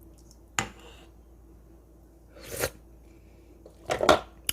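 Tasting samgyetang broth: a sharp utensil click, a short slurp about two and a half seconds in, then a few more clicks and noises near the end.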